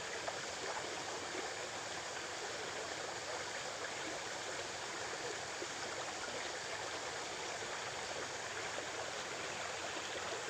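A small river's water running steadily, an even unbroken wash of flowing water.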